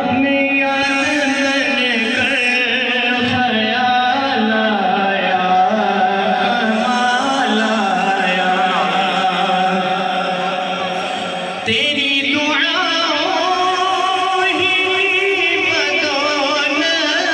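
A naat sung in a drawn-out, chanted melody. The voice fades slightly and breaks off about twelve seconds in, then starts again on a new phrase.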